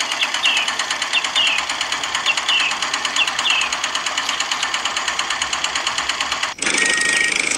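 Miniature DIY cement mixer running: its small electric motor and drive turn the drum full of cement mix with a fast, even rattle, which cuts off abruptly near the end.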